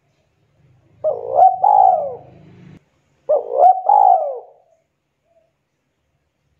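Spotted dove cooing: two three-note coo phrases, each a short rising note followed by two longer arched notes, the second phrase about two seconds after the first.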